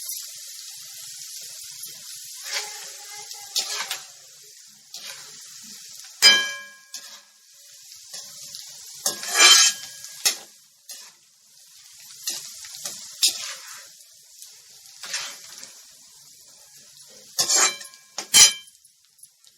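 Hot oil sizzling in a kadhai as food deep-fries, with a metal spoon stirring and clinking against the pan. There are several ringing strikes, the loudest about six, nine and eighteen seconds in.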